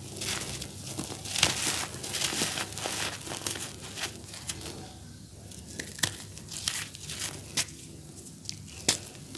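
Dry, grainy charcoal cakes crumbled and crushed between bare hands, giving a steady crackling crunch with powder sifting and pattering onto loose powder. The crunching is dense at first and turns sparser about halfway through, with a few sharp crisp cracks.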